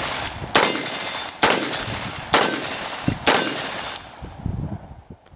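Four loud gunshots about a second apart, each ringing out after it, the echo fading away near the end.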